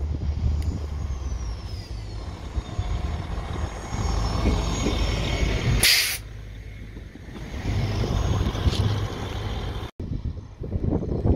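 PT INKA KAUJR track recording railcar approaching and passing close by: engine running with the wheels on the rails, a high whine falling in pitch in the first few seconds, and a short, loud hiss as it passes about six seconds in. Near the end the sound cuts to the railcar approaching at another spot.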